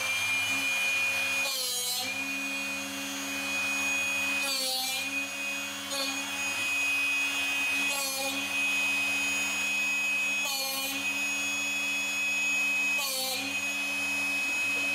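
Drill Doctor 360 drill-bit sharpener running steadily while a blunt twist drill held in its chuck is ground in the sharpening port, the bit turned 180 degrees at a time. A rasping grind about every two and a half seconds, six in all, each briefly loading the motor.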